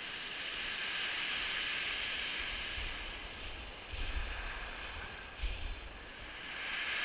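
Surf breaking and washing over a shingle beach, a steady hiss that swells and eases, with a couple of low bumps on the microphone about four and five and a half seconds in.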